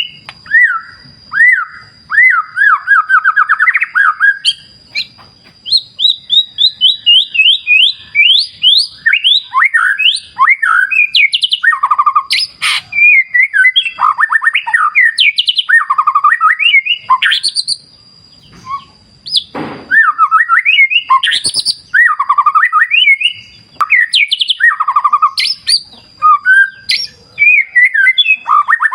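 White-rumped shama (murai batu) singing a fast, varied song of quick trills and chattering phrases, with only brief pauses. A thin, steady high tone runs behind it.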